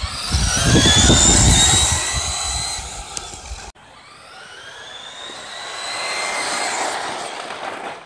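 Electric motors of two radio-controlled racing cars, including a Traxxas Slash, whining and rising in pitch as they accelerate hard, over a low rumble. The sound cuts off abruptly about three and a half seconds in, then the whine swells and fades again as the cars pass by.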